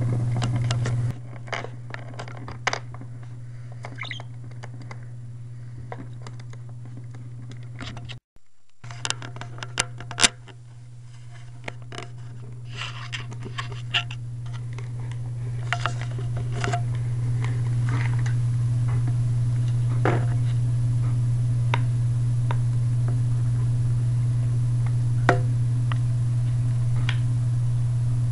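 Scattered light clicks and scratches over a steady low hum, broken by a brief silent dropout about eight seconds in.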